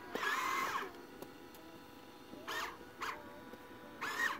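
Electric motors of a radio-controlled Bobcat tracked skid steer whirring in short bursts as it drives and lifts its bucket: a long whine at the start, then three short ones, each rising and falling in pitch.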